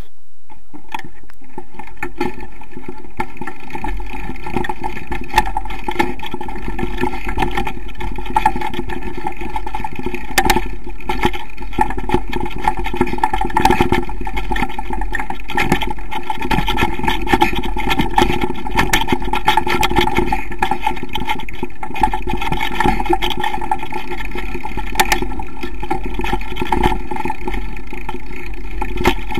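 Engine of a small off-road vehicle running steadily as it rides a bumpy forest dirt trail, with frequent short knocks and rattles from the jolts over the ground.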